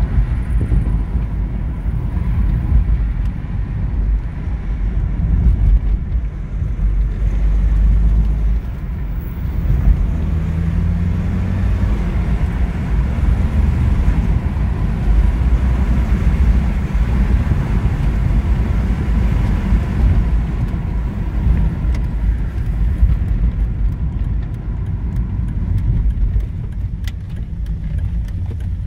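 BMW E46 318d's M47N four-cylinder common-rail diesel running steadily. This is the engine whose injector ticking and knocking the owner is recording; the fault turned out to be worn injectors.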